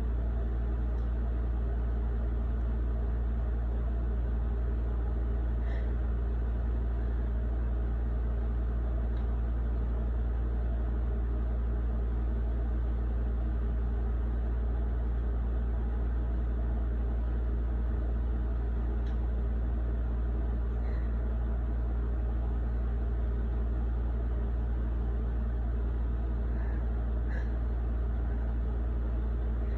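Steady low background hum with no change in level, and a few faint small ticks now and then.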